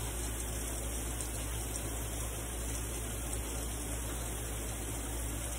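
Steady hiss of running water, with a low hum underneath.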